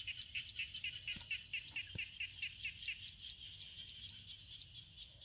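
A small animal's high chirping call, repeated rapidly at about five chirps a second, fading after about three seconds.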